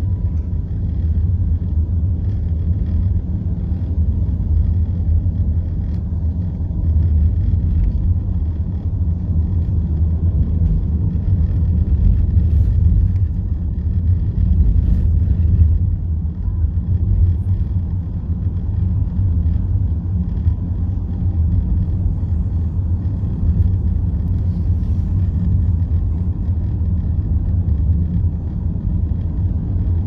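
Steady low rumble of a car driving at road speed, heard from inside the cabin: tyre, road and engine noise. It swells a little about halfway through.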